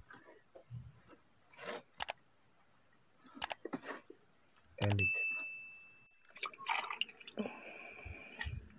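Hands scraping and patting loose loamy soil over snail eggs, faint scattered scrapes and crumbles. About five seconds in, a short chime rings once, and near the end a steady sound of stirred water comes in.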